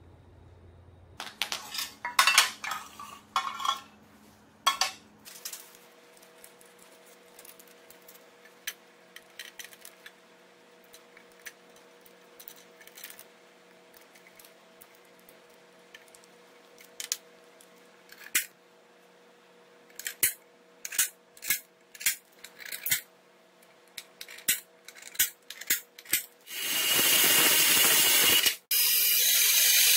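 Light metal clinks and taps, with a few clusters early on and scattered ones after. About three seconds before the end, a cordless drill with a step bit starts boring through an aluminium plate with a loud, steady whir.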